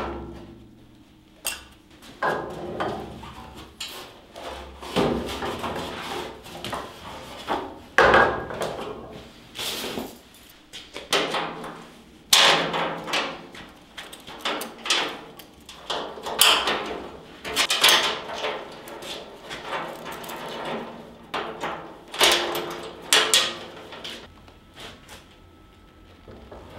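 Steel welding cart being handled and assembled: repeated metal clanks and knocks, with a steel chain rattling.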